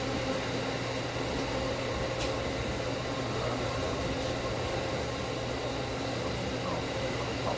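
Steady hum and rumble heard inside an electric train car, with one faint click about two seconds in.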